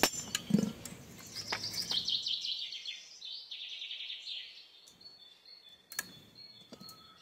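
Birds chirping high and fast for a couple of seconds, with a few sharp knocks in the first two seconds and another about six seconds in.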